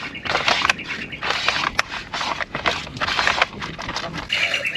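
Irregular rough scraping strokes, several a second, from work on the boat's hull. Near the end a bird starts a fast, high, pulsing trill.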